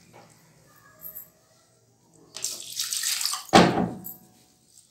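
Water running for about two seconds, starting about halfway through, with a louder gush near the end; the first half is quiet.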